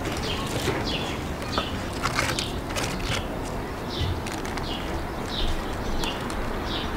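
A small bird chirping over and over, short falling high chirps at about one and a half a second, over a steady outdoor background noise with a few sharp clicks.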